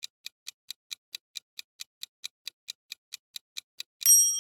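Countdown timer sound effect: rapid clock ticks, about four to five a second, then a bright bell chime ringing out near the end as time runs out.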